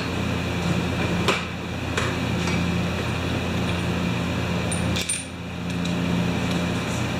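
A few scattered metal clicks and knocks from hand tools being handled, over a steady low hum.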